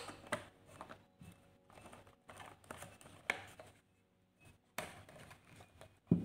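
Clicks, scrapes and knocks of a clear plastic spice jar being handled: its white plastic screw cap is turned on and off, and the cinnamon sticks inside knock against the plastic. The loudest knock comes near the end.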